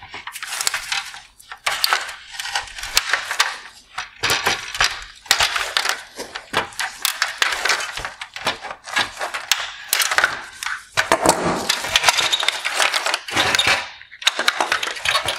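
Plastic wire harness clips and connectors being pried and pulled off a plastic headlight mounting frame: a continuing run of clicks, snaps and rattling of plastic parts and loose wires.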